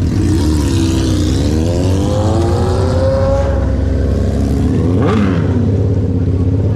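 Yamaha MT-07's parallel-twin engine breathing through a Toce aftermarket exhaust on the move, over a steady low drone. The engine note climbs for about three seconds as it accelerates, then eases off, with a quick sweep in pitch about five seconds in.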